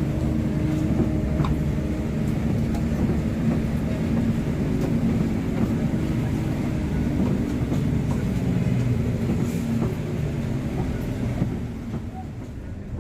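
A coach's diesel engine running steadily, a low rumble heard from inside the cabin, easing slightly near the end.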